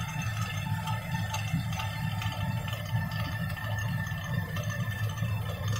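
Ladakhi water-powered stone mill (ranthaq) running: the spinning upper millstone grinding grain into flour with a steady low rumble.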